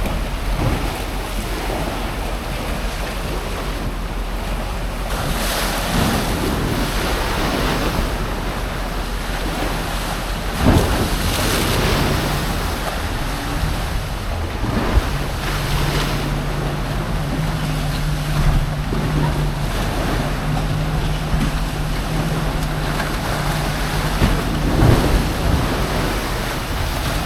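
Strong wind buffeting the phone's microphone over waves and swell breaking around the boats in a storm, with a few louder knocks. From about halfway through, a low steady hum runs under it.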